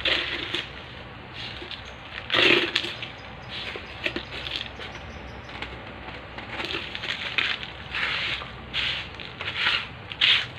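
Hands working gritty potting mix of coarse mountain sand, burnt rice husk and compost in a pot around an adenium caudex, crunching and scraping in a series of short bursts, the loudest about two and a half seconds in.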